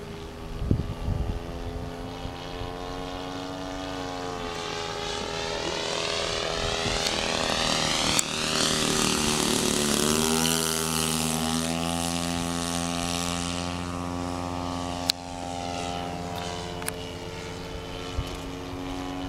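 ESM T-28 Trojan radio-controlled scale model plane's engine and propeller droning in flight, growing louder as it approaches, then dropping in pitch as it passes about ten seconds in and easing off as it moves away.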